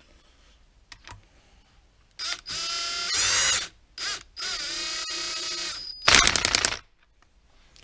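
Cordless drill-driver running main bearing cap bolts into an engine block: two spells of motor whine, the first rising and falling in pitch, then a short, loud rattle of rapid clicks as a bolt runs down tight.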